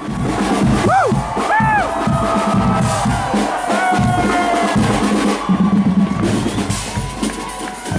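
Marching band playing in a street procession: steady drumming on bass and snare drums, with a few short sliding notes about a second in and some held notes after.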